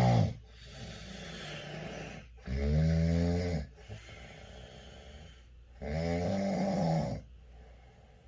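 A man snoring loudly in a steady rhythm. A rattling, pitched snore comes about every three seconds, with quieter breathy breaths between them.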